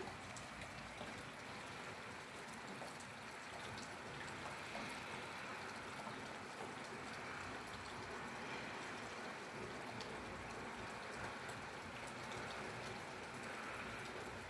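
Steady rain falling, with many small scattered drop ticks over an even hiss.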